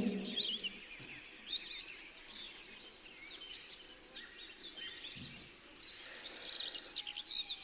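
Small birds chirping and twittering faintly in the background, many short calls scattered through the pause, over a low steady hiss.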